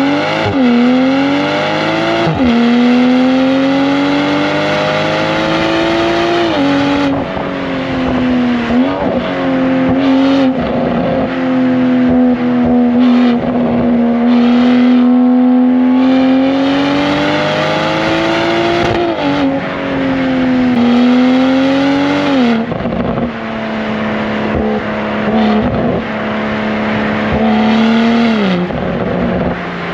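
BMW M240i's B58 turbocharged inline-six through a Valvetronic Designs valved sport exhaust with stock downpipes, heard close to the tailpipes while driving. The engine note climbs in pitch under acceleration and drops sharply at several upshifts, with a slower easing off and pull in the middle.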